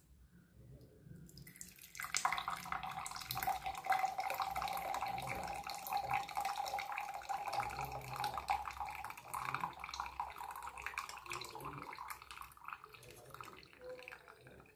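Herbal decoction being poured through a strainer into a vessel: a steady trickle and splash of liquid that starts about two seconds in and thins out near the end.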